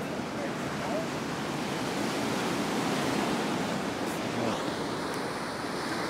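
Ocean surf breaking and washing up on a sandy beach: a steady, even rushing.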